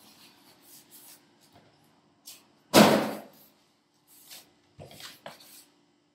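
Styrofoam packing end caps being pulled off a boxed DJ controller and handled: one loud thump about three seconds in, then a few lighter knocks, scrapes and rustles of foam and plastic bag.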